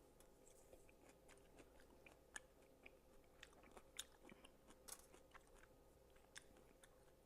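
A person chewing food close to the microphone: faint, irregular small wet mouth clicks.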